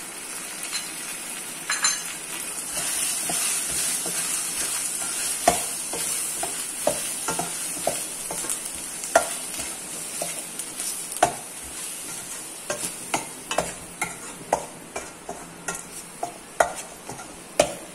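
Shallots and chilli powder sizzling in hot oil in a steel pan while a steel spoon stirs them, scraping and clinking against the pan at irregular moments.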